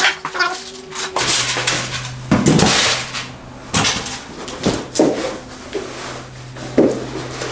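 Unpacking a roof-rack platform from its cardboard box: packaging rustles and the wrapped parts give several dull knocks as they are shifted and set down.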